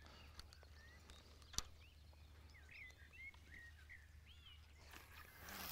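Faint outdoor quiet with small birds chirping again and again. A single sharp click about one and a half seconds in, and a short burst of hiss near the end.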